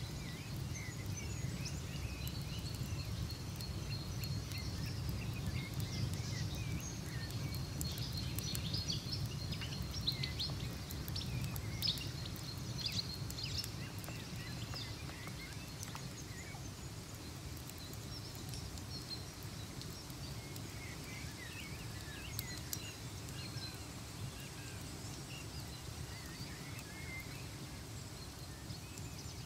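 Autumn ambience: small birds chirping, busiest in the first half, over a steady low rumble with scattered sharp crackles.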